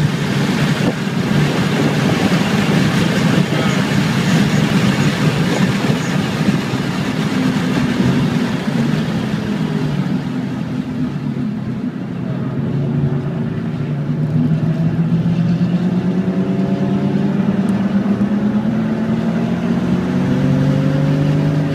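Audi RS4's engine running at high revs under throttle in third gear, heard from inside the cabin with road and wind noise. In the second half its pitch climbs slowly as the car accelerates.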